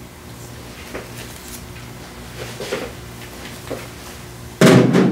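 Faint clicks and knocks from a small ceramic ramekin and bowl being handled on a stone countertop, over a steady low hum. A loud sudden sound comes near the end.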